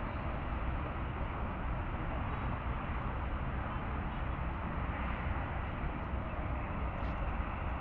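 Steady rumbling outdoor noise of distant expressway traffic, mixed with wind buffeting the microphone.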